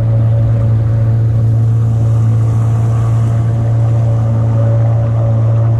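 Sailboat's auxiliary engine running steadily under way: a loud, even low drone that holds one pitch.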